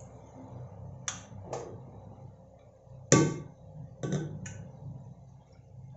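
Five short metallic knocks and clinks of kitchen utensils against steel pots. The loudest comes about three seconds in and rings briefly. A steady low hum runs underneath.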